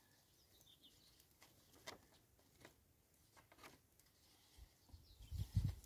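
Faint, sparse ticks of a felt-tip marker tapping and scratching on a paper target, with a couple of low thumps near the end.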